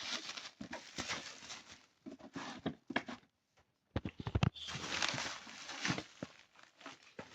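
Cardboard box and packaging being wrestled open by hand: irregular rustling and scraping with sharp clicks, a short pause about halfway, then a few knocks and more rustling.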